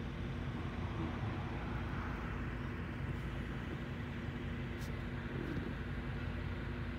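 Car engine running steadily, heard from inside a car: an even low hum with road and traffic noise.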